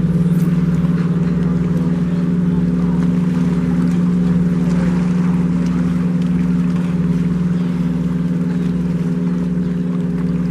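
Boat motor running with a loud, steady hum at one unchanging pitch.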